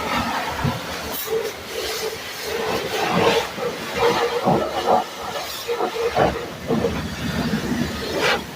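Water jet spraying and hissing in uneven surges against an agricultural Cessna's airframe as it is washed, with a steady hum underneath through the middle.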